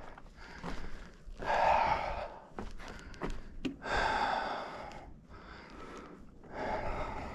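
A person breathing hard, three heavy breaths a couple of seconds apart, with a few light clicks between them.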